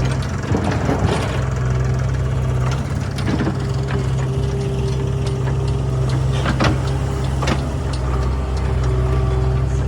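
Diesel engine of a JCB 3DX backhoe loader running steadily under work, with a steady higher tone over the drone and a few sharp knocks scattered through.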